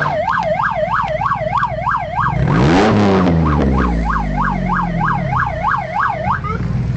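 Ford Mustang GT's V8 idling, with one rev about two and a half seconds in that rises and falls away over the next two seconds. Over the idle, a siren wails up and down about three times a second, breaking off during the rev and then carrying on.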